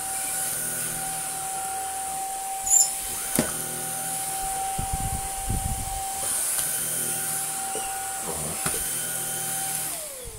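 A Greenote GSC50 cordless stick vacuum is running with a steady high motor whine and hiss as it is pushed over a rug and floor, with a few knocks along the way. Near the end it is switched off and the whine falls in pitch and dies away.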